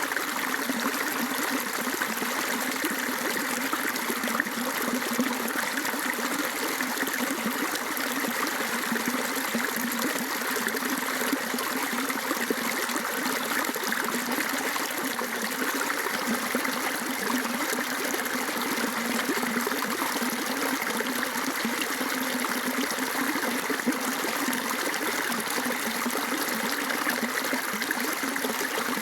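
Rainwater flowing steadily over a small stream or channel, a continuous trickling and rushing of water.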